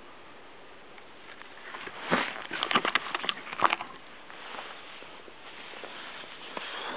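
Handling noise: a burst of rustling and sharp crackling clicks about two seconds in, lasting about two seconds, as the camera and camouflage clothing are moved, over a steady hiss.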